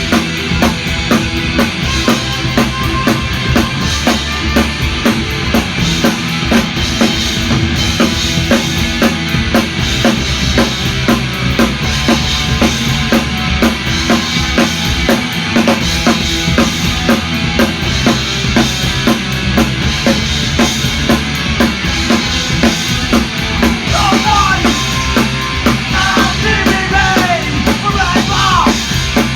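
Punk rock band playing loudly, driven by a busy drum-kit beat of bass drum and snare. Near the end, a wavering melodic part comes in over the drums.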